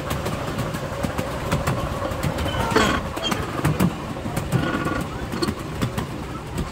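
Miniature railway train running, heard from an open passenger car: the cars' wheels rumble on the 7¼-inch-gauge track with many short clicks from the rails, and a brief louder sound about three seconds in.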